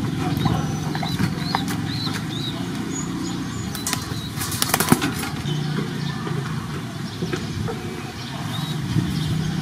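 Pigeon taking off in a burst of wing flaps about four seconds in, over a steady low hum.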